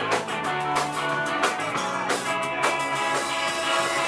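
Live rock band playing, heard from within the crowd: electric guitar and bass over a steady drum-kit beat.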